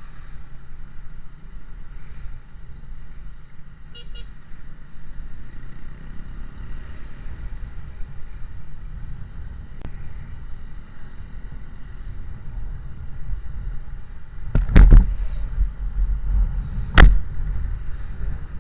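Steady low rumble of a road vehicle on the move, with two loud sharp knocks about two seconds apart near the end.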